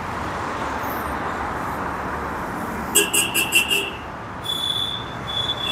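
Steady background traffic noise. About three seconds in comes a quick run of about six short horn-like toots, and a steady high-pitched whine starts a second or so later.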